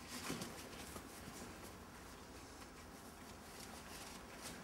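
Faint rustling and handling noise of a webbing strap being tied off around a microlight trike's fuel tank, with a couple of soft scuffs.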